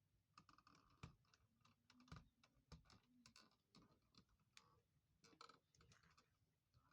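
Faint, irregular clicks and taps of a wall socket and its wires being handled while being wired up.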